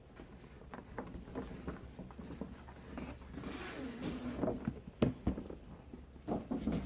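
Packaging being handled during an unboxing: scattered light taps and knocks, a stretch of rustling around the middle, and a couple of sharp thumps about five seconds in.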